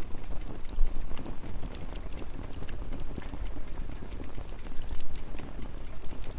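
Firewood fire burning, with frequent sharp crackles and pops over a low steady rumble.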